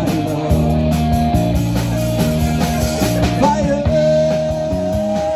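Live rock band playing an instrumental passage between sung lines: electric guitars and drums, with a lead line of long held notes over the chords.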